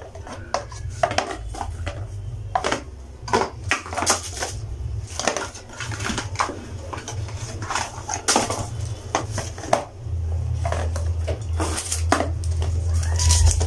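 Plastic skincare bottles and tubes clicking and knocking against each other and a cardboard box as they are handled, with packaging rustling: irregular sharp clicks over a low steady hum.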